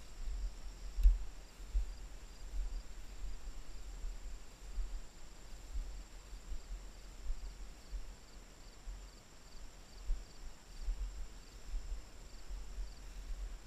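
Irregular low thumps and rumble of a body-worn camera as the handler walks through long grass, the strongest about a second in. Faint insects chirp about twice a second behind it, stopping near the end.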